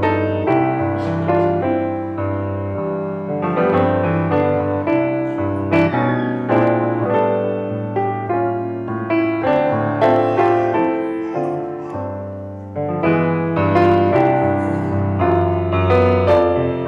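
Solo piano playing chords over a bass line. It softens about twelve seconds in, then comes back louder.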